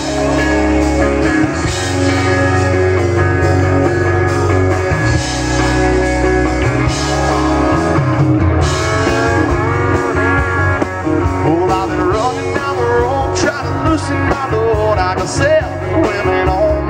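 Live country-rock band music: guitars and electric bass with drums, in an instrumental passage between sung lines.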